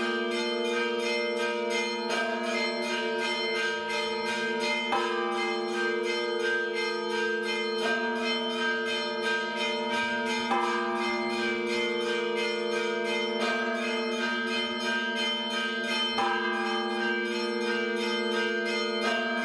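Bells ringing in a fast, continuous peal, many notes sounding together, with the set of notes changing roughly every three seconds.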